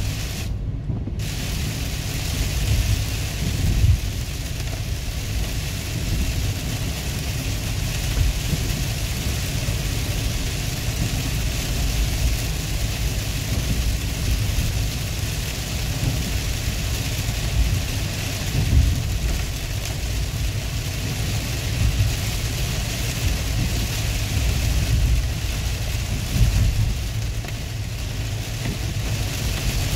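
Heavy rain on a car's windshield and body, heard from inside the cabin, over the steady engine and tyre noise of the car driving on a wet road. The higher rain hiss cuts out for a moment about a second in.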